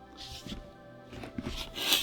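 Soft background music of steady held tones, with brief rustling noises about a quarter second in and again near the end.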